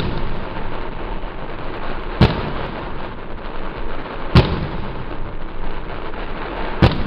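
Aerial fireworks going off: three sharp bangs about two seconds apart, over constant background noise.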